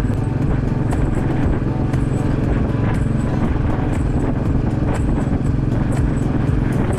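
Royal Enfield Bullet 500's air-cooled single-cylinder engine running at a steady cruise, with no change in speed.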